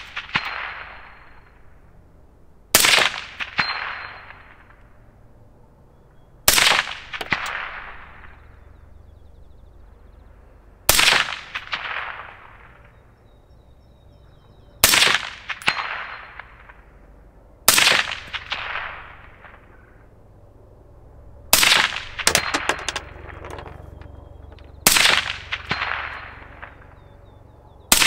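Seven shots from a suppressed 6.5 Grendel AR-15 rifle, fired one at a time a few seconds apart. Under a second after each shot comes the clang of the steel prairie dog target being hit.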